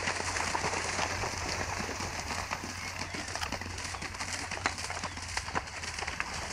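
Horse galloping through shallow water, its hooves splashing in quick repeated strikes.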